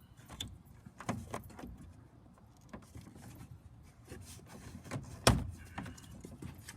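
Scattered light clicks, taps and rattles of hands and tools handling the plastic air intake housing and its screws in a car engine bay, with one sharp, louder click about five seconds in.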